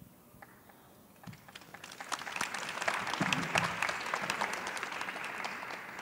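Audience applauding. The clapping builds over the first couple of seconds, holds steady, then tapers off near the end.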